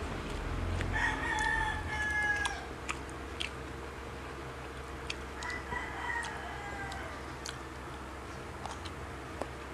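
A rooster crowing twice, each crow a drawn-out call of about a second and a half, the first about a second in and the second about five seconds in. Short sharp clicks are scattered throughout.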